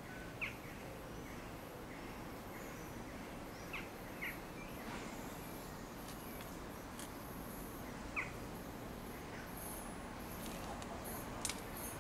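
A few short bird chirps, one at a time, over a faint steady background of outdoor noise: about half a second in, twice around four seconds, and once around eight seconds, with a couple of faint clicks near the end.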